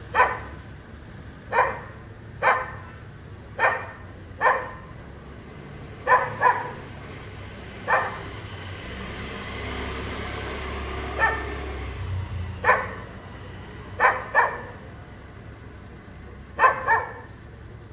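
A dog barking at night, about fourteen single barks at irregular intervals, several coming in quick pairs. A steady background hiss runs under them and swells with a low rumble in the middle.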